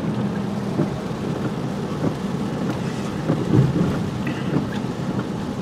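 Rain on a moving car, heard from inside the cabin: a steady rumble of road and engine noise with the patter of rain and a few small knocks.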